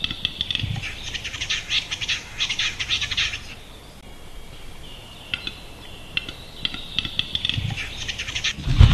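Male western capercaillie singing its display song: dry clicks that speed up into a rapid scraping, grinding phrase of about two and a half seconds. After a pause, a second run of clicks speeds up again. A loud low thumping comes right at the end.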